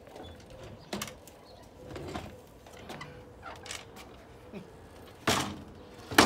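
A boat's gangway being handled on a wooden pontoon: scattered knocks and scrapes, then a sudden loud clatter near the end as it is laid down.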